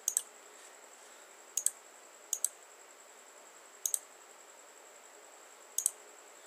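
Computer mouse button clicked five times, a second or two apart, each click a quick press-and-release double tick.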